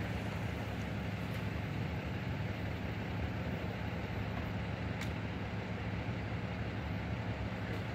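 Steady low hum of an idling engine, with one faint sharp click about five seconds in.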